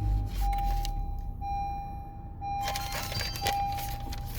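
Honda car's dashboard warning chime: a steady beep tone repeating in roughly one-second notes with short breaks, warning that the keyless remote battery is low. The engine runs low underneath, loudest just after it starts.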